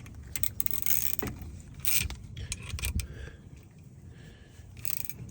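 Scattered metallic clinks and scrapes of hand tools or parts being handled, with the loudest scrapes about one, two and five seconds in.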